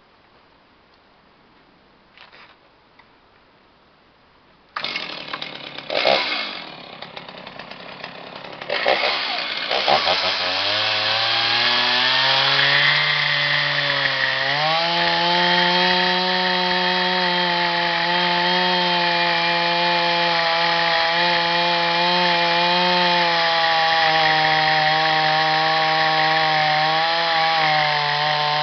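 Chainsaw starting up about five seconds in, then its engine speeds up over a few seconds to a high, steady running note that holds to the end. The saw drives a chainsaw mill.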